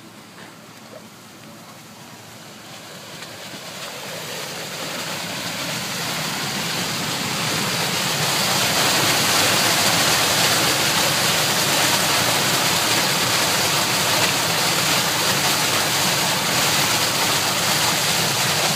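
Stormwater rushing and churning into a catch basin as a thawed underground roof rain-leader line drains the water held on the roof; a loud steady rush of water that grows louder over the first eight seconds or so, then holds steady.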